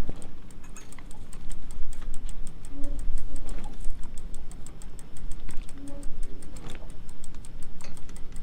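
Rapid, even ticking at about six to seven clicks a second, with a short squeak about every three seconds, from the hand crank and gearing of a high tunnel's roll-up side wall being wound down. A steady low rumble runs underneath.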